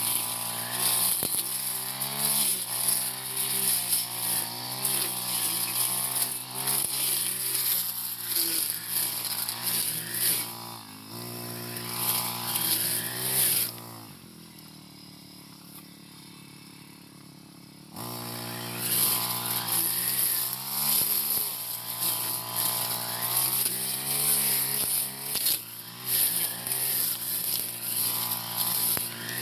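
Four-stroke brush cutter engine running hard while cutting tall scrub grass, its pitch rising and falling with the load. In the middle it drops to a much quieter steady sound for about four seconds, then comes back up to full revs.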